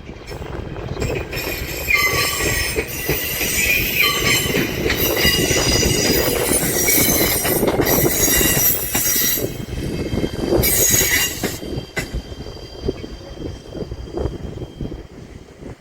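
JR Shikoku 8000 series electric train passing, its wheels squealing in several high-pitched tones over a steady rumble. The squeal comes in strong stretches for most of the pass and dies away about three-quarters of the way through, leaving the rumble.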